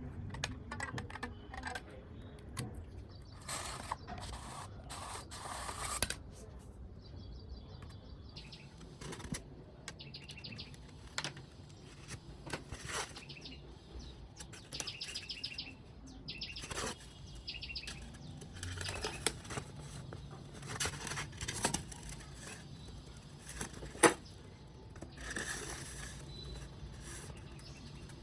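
Hands working on thermocol foam and tools: irregular clicks, taps and scrapes, with a few short squeaks and one sharp click near the end.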